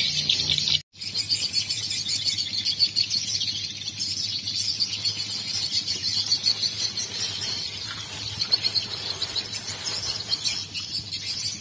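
Rapid, high-pitched chirping of birds and insects over a faint low hum, cutting out for an instant about a second in.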